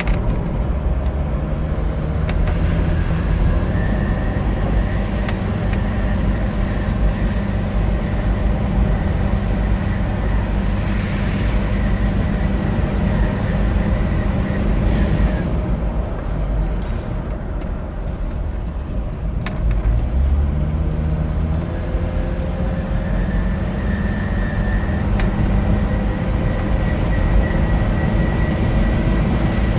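Mercedes OM602 five-cylinder turbodiesel running under load, its note climbing as it gains revs, with a thin, steady turbocharger whistle on top. About halfway through it eases off and the whistle fades, then the engine pulls again and the whistle returns.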